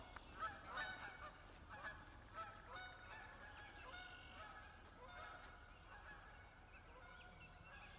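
Faint honking from a flock of geese: many short calls at irregular intervals, thinning out toward the end.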